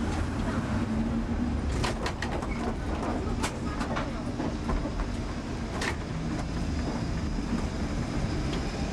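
Lisbon tram running along street track, heard from its front platform: a steady rumble of wheels and running gear, with a few sharp clicks about two, three and a half and six seconds in.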